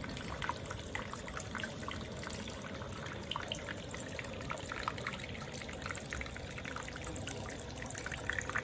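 Water trickling and falling steadily down a small homemade waterfall fountain, with many small drips and splashes scattered through it.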